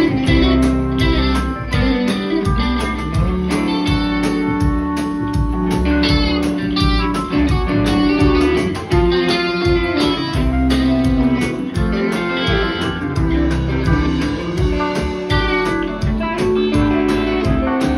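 Live rock band playing an instrumental jam: two electric guitars trade lines over steady drums.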